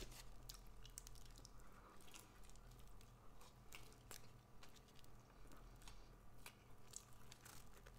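Faint chewing: quiet, irregular mouth clicks and crunches over a low steady hum.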